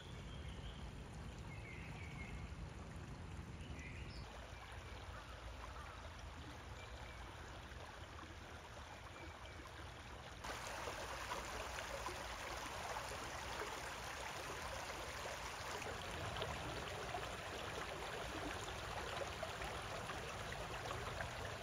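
Shallow creek water running and trickling over rocks. The flow gets suddenly louder about ten seconds in and stays steady after that.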